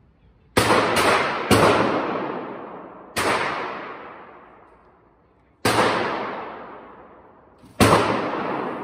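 Gunshots echoing in an indoor shooting range, fired in nearby lanes, with about six sharp reports each trailing a long reverberant decay. Three come in quick succession about half a second in, then single shots follow roughly every two to two and a half seconds.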